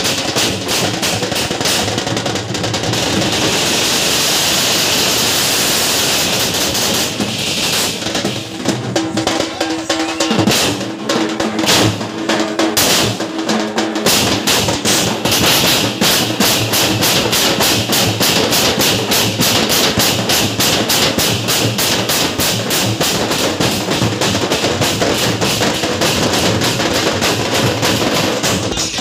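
Loud drum-heavy music for a Pothuraju dance, with a fast, even drumbeat that takes over in the second half.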